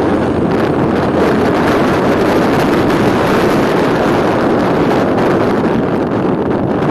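A steady, loud rush of wind on the microphone of a motor scooter riding at speed, mixed with the scooter's engine running.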